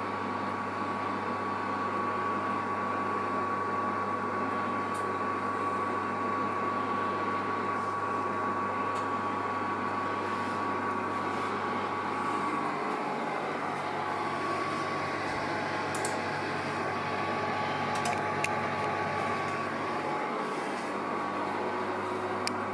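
Steady hum and hiss with a faint high whine running through it, broken by a few light clicks.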